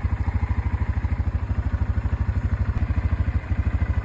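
Four-wheeler (ATV) engine running at low, steady revs, its exhaust pulsing evenly at about a dozen beats a second, with a brief dip near the end.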